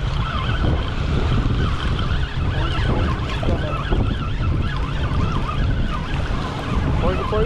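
Wind buffeting the microphone, with small waves washing in at the water's edge.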